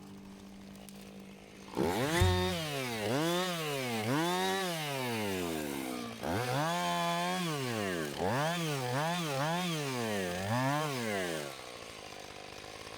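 Chainsaw engine revved up and down over and over, its pitch rising and falling about ten times in two runs with a brief break in the middle. It cuts out near the end.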